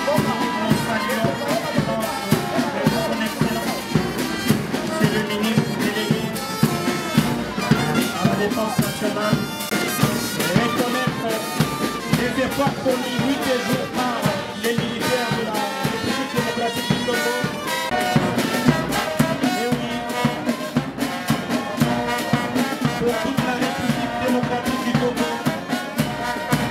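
Military brass band playing a march with a steady drum beat, as troops march past in parade.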